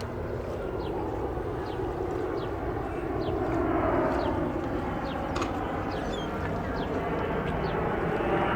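An airplane passing overhead: a steady engine rumble that slowly grows louder. Short high chirps are scattered through it.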